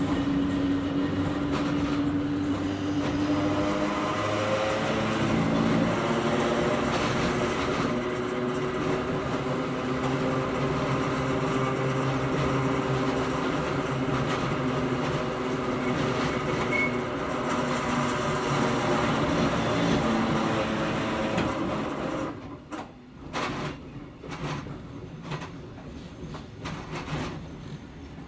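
Hakone Tozan Railway Moha 1 electric car heard from inside while running, with the hum of its nose-suspended traction motors and gearing slowly shifting in pitch over the rumble of wheels on rail. About 22 seconds in, the running noise drops away sharply, leaving scattered knocks and clicks.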